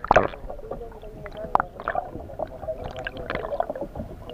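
Sea water heard through a submerged camera: a loud rush of water right at the start, then muffled gurgling with scattered small clicks and knocks over a faint steady hum.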